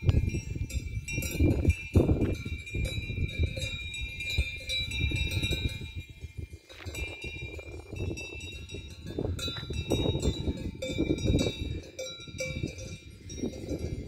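Cowbells on grazing cattle clanking and ringing irregularly, several bells at once, over a loud low rumbling noise.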